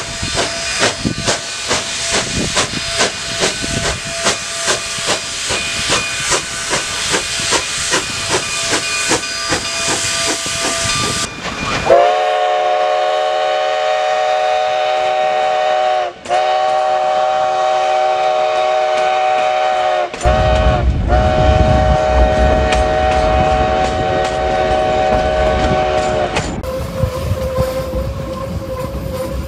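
Narrow-gauge steam locomotive, Cumbres & Toltec No. 484, a K-36 2-8-2, pulling away: its exhaust chuffs at about two to three beats a second over hissing steam. About twelve seconds in its steam whistle sounds in long blasts with two short breaks, and a low rumble joins as the engine passes close. Near the end the train runs steadily with a held squeal, typical of wheels on a curve.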